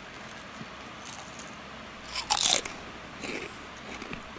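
Crunchy bites into fried finger food, with chewing in between; the loudest crunch comes about halfway through, with softer ones before and after.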